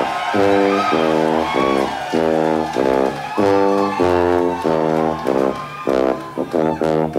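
Background music: a steady run of short repeated notes, about two a second.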